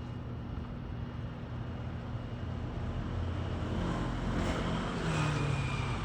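A passing vehicle: a low rumble that swells over the second half, with a faint tone dipping slightly in pitch as it goes by.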